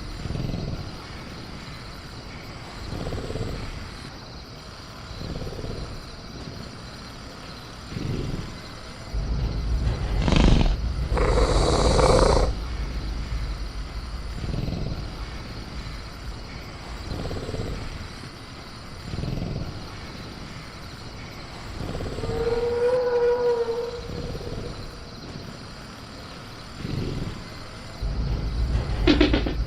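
Dinosaur sound-effect ambience of an agitated caged velociraptor: low growling rumbles every couple of seconds, a loud roar about ten seconds in, and a pitched call a little past twenty seconds, over steady crickets.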